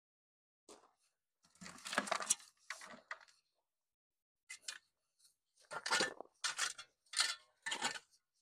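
Shovel blade chopping and scraping into soil and roots, cutting a chunk from a bleeding heart's root clump: a run of short strikes at irregular intervals, coming closer together and louder in the second half.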